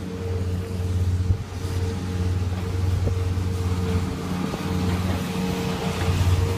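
Tractor engine running steadily with a low, even drone and a thin steady whine above it.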